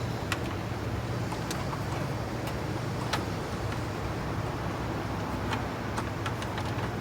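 Scattered light clicks and taps of plastic dash trim being worked into place around the instrument cluster, over a steady low hum.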